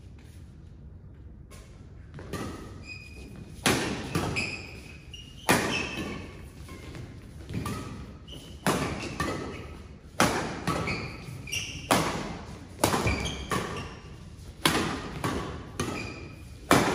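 Badminton rackets striking a shuttlecock in a fast doubles rally, sharp hits coming about once a second and starting about two seconds in, echoing in a large hall. Between the hits, sneakers squeak briefly on the court mat.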